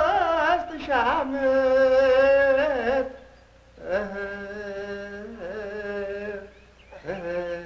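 A lone voice singing long, held notes that waver and turn, in three phrases with short breaks between them.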